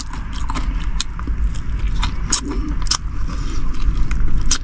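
Gnawing and chewing on a pork spine bone, a run of short sharp clicks and scrapes, over a steady low rumble of strong wind buffeting the parked car.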